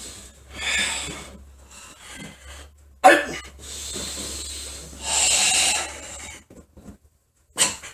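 Forceful Sanchin kata breathing: long, hissing breaths forced out and drawn in through a tensed throat, with a sudden loud burst about three seconds in and a short sharp one near the end.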